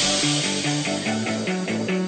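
Background music: a quick, even run of single melody notes, about four or five a second, over a bass line, easing slightly softer in the first second.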